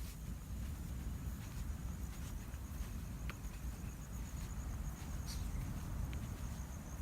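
Insects trilling steadily in a high, rapidly pulsing buzz over a constant low rumble, with a few soft footsteps in sand.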